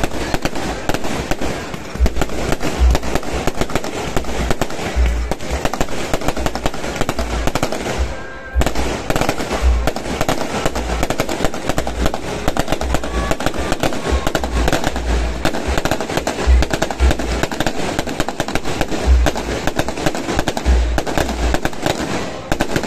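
Fireworks display: a dense, continuous barrage of rapid bangs and crackling, with a brief lull about eight seconds in.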